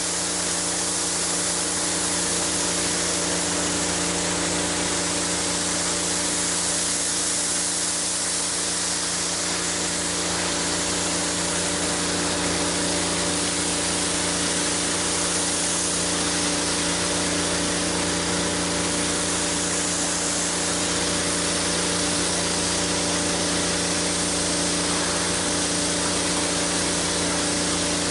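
Pressure washer running with a four-tip water broom spraying across concrete: a steady hiss of spray over the machine's even hum.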